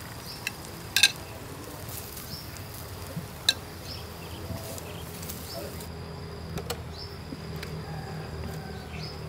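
Insects chirping steadily at a high pitch, with two sharp clicks about one second and three and a half seconds in.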